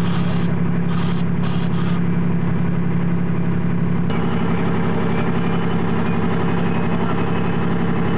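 Military tracked vehicle's engine running with a loud, steady drone. The tone shifts slightly about four seconds in.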